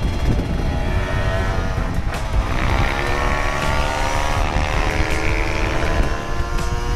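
Motorcycle engine running on the move, its pitch climbing about two seconds in and easing off again, over heavy wind buffeting on the microphone.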